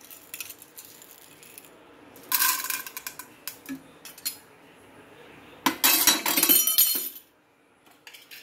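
Popcorn kernels and the aluminium pressure cooker clinking and rattling in two short spells, about two seconds in and again, louder, near six seconds in.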